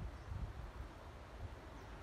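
Wind buffeting the microphone in irregular low gusts over a faint steady outdoor hiss.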